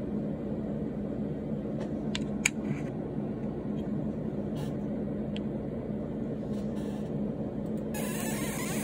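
Steady hum of a small electric motor running, with a sharp click about two and a half seconds in; a high hiss joins near the end.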